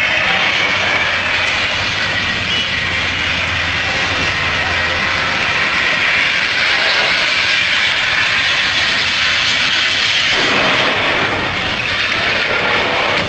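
Steady vehicle noise: a low engine hum under a loud, even hiss. About ten seconds in, the lower sounds grow stronger.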